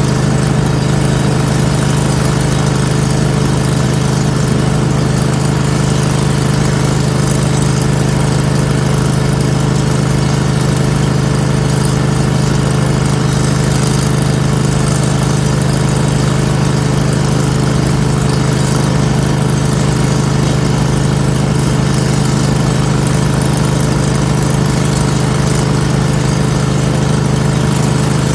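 An engine running steadily at a constant speed, with an even, unbroken drone.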